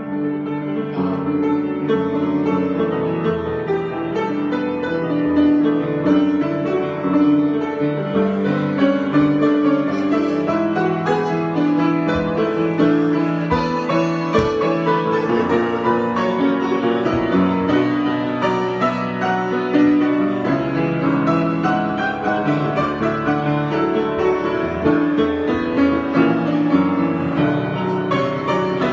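Solo piano improvisation, with chords and melody notes played without a break at a steady level.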